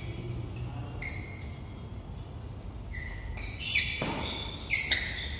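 Sneakers squeaking on a badminton court floor during a rally, with short high squeaks throughout. Two sharp racket hits on the shuttlecock come in the last second and a half.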